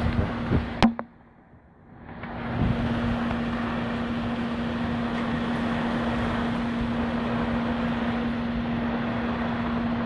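Severe thunderstorm with high winds and torrential rain: a steady rushing noise of wind and wind-driven rain. A click about a second in is followed by a brief drop to near quiet, before the storm noise swells back and holds steady.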